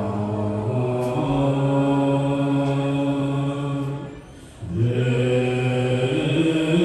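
Tibetan Buddhist mantra chanted in long, held notes at a low pitch. The chant breaks off for a breath about four seconds in, then resumes.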